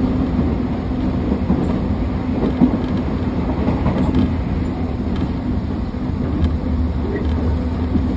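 Electric commuter train running at steady speed, heard from inside the car: a low rumble of wheels on rails with a steady hum from its Toshiba permanent-magnet synchronous traction motors, and a few faint clicks.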